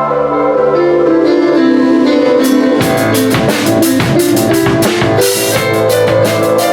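Keyboard playing held chords, joined about two and a half seconds in by a large drum kit with many cymbals: drum hits and cymbal crashes over the chords.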